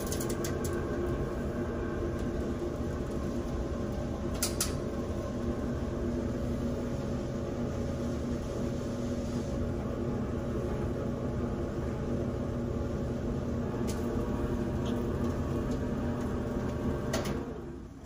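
Clothes dryer running with its exhaust duct disconnected: a steady blower-motor hum with air rushing out of the outlet, pushing great air. This shows the machine itself is fine and the trouble was a clog in the vent. It shuts off and winds down near the end.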